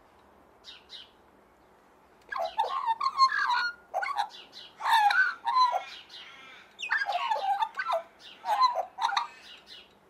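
Australian magpie singing: after one faint short note about a second in, a string of loud, varied warbling phrases with short gaps between them.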